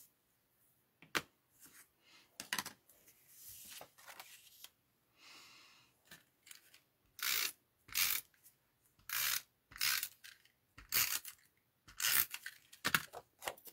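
Hand-crafting sounds of paper and cardstock being worked: a few light clicks and taps, then a run of short rustling, tearing-like strokes about one a second.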